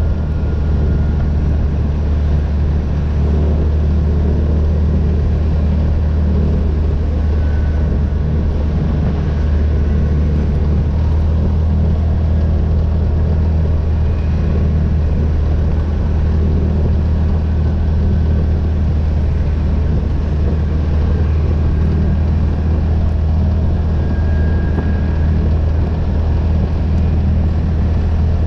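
ATV engine running steadily at cruising speed, a loud even drone, over a rushing haze of tyres on gravel.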